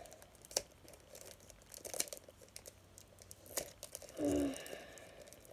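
Trading card packaging being torn and peeled open by hand, crinkling with scattered sharp crackles and clicks. A brief pitched sound comes about four seconds in.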